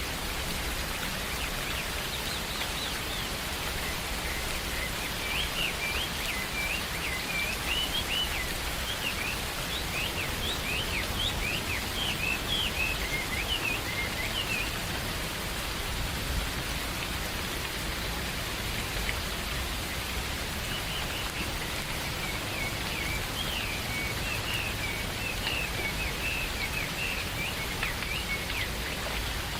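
Steady rain falling, with birds singing in quick, rapid chirps in two spells, the first for about the first half and the second near the end.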